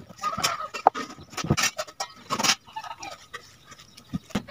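Charred, fire-roasted leaf packet being pulled open by hand: the burnt dry leaves crackle and rustle in irregular bursts.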